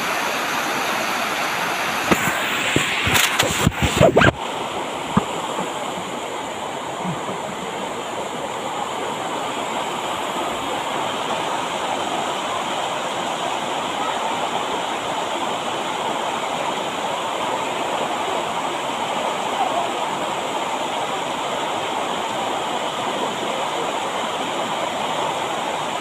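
Steady rush of a hot-spring waterfall pouring over a rock face into shallow rapids. About two to four seconds in, a quick run of sharp clicks and knocks.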